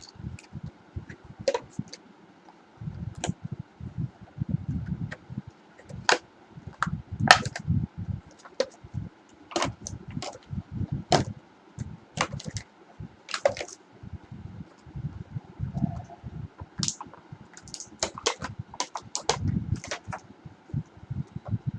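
Irregular clicks, cracks and low thumps from hands handling the packaging and the headset as it is unwrapped.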